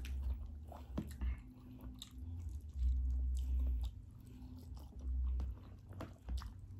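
Close-up chewing and biting: two people eating a breakfast of rice, fried eggs and meats with their hands, with short wet smacks and clicks and stretches of low rumble.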